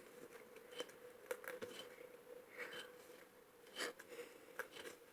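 Faint handling noises as slime is scraped and gathered out of a small cauldron: scattered light clicks, taps and scrapes over a faint steady hum.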